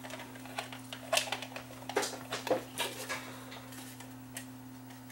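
Light clicks and clatter of tools being handled on a workbench, about six scattered knocks, over a steady low electrical hum.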